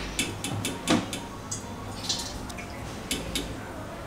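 Perforated metal skimmer working through a pan of hot frying oil to clear out burnt crumbs between batches: a scatter of light clicks and drips, thickest in the first second or so.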